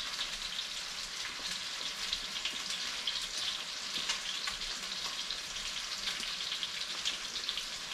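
Breadcrumbed coral trout pieces shallow-frying in coconut oil in a pan: a steady sizzle with fine crackling.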